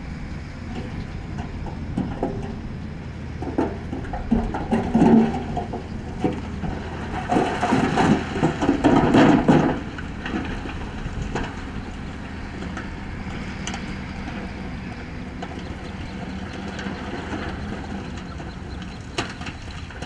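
Heavy diesel earthmoving machinery running steadily, with scattered knocks and then a louder stretch of tumbling, clattering rock and dirt about seven to ten seconds in.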